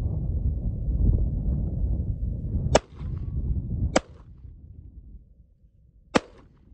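Three pistol shots from a semi-automatic handgun: two about a second apart, then a third about two seconds later. Each is a sharp crack. A low rumble under the start drops away after the first shot.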